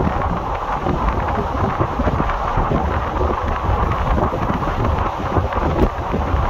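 Wind buffeting the microphone held out beside a fast-moving Indian Railways express coach, over the train's steady low running rumble.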